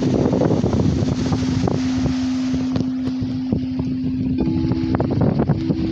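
Singing bowl holding a steady low tone, with a second, higher tone joining about four and a half seconds in, under heavy wind buffeting the microphone.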